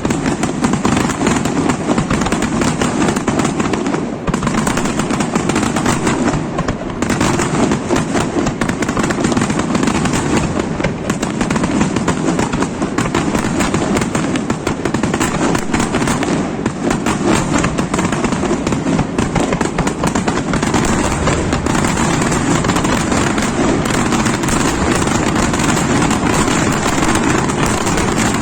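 Aerial fireworks display in a dense, continuous barrage: rapid-fire bangs and crackling shells overlapping without a break, at a steady loud level.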